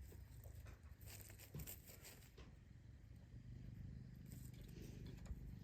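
Near silence, with faint scattered clicks and light rustling.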